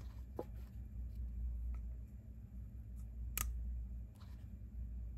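Small sharp clicks and snaps of resin print supports being broken out of a 3D-printed part, about five in all, the loudest a little past three seconds in, over a low steady hum.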